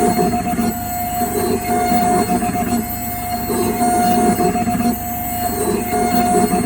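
In-office dental milling machine grinding a crown out of a solid porcelain block: a steady whine over a lower grinding noise that swells and fades every second or so.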